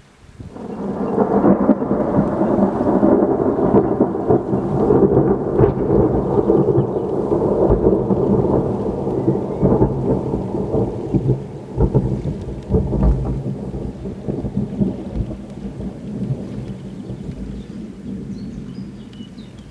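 Thunder: a thunderclap breaks about half a second in, then rolls on as a long crackling rumble that slowly dies away over the following seconds.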